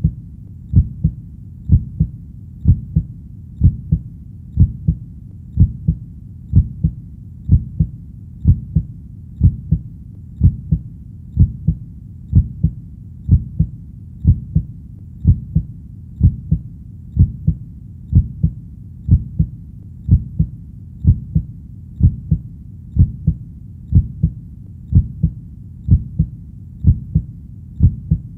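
Heartbeat sound: steady lub-dub double thumps at about one beat a second, low and muffled, over a constant low background.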